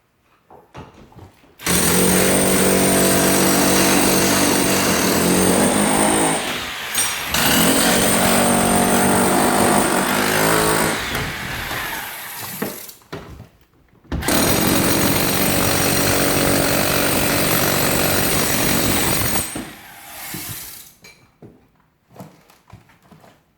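Handheld power tool run in three long bursts of about four to five seconds each, with a steady motor pitch and short pauses between.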